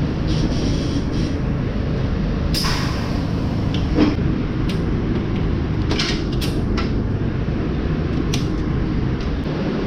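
Steady low drone of running machinery, with several sharp clicks and knocks on top, the loudest about four seconds in.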